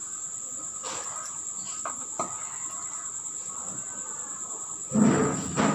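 A steady high-pitched cricket trill runs throughout. Beneath it are a few faint taps and scrapes of a spoon stirring semolina into hot milk in a nonstick pan, and a short, louder burst of noise about five seconds in.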